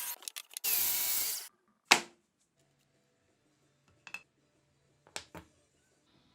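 A power tool runs for under a second, then there is a single sharp knock, followed by a few light taps.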